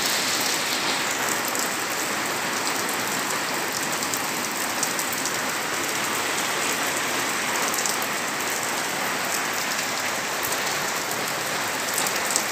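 Steady rain falling on a concrete rooftop terrace and its walls.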